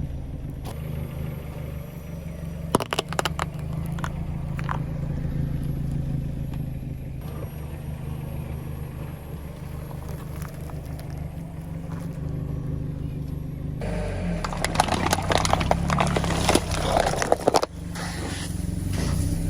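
Car engine running slowly with a steady low hum; from about two-thirds of the way in, dense crunching and crackling as objects are crushed under the tyres.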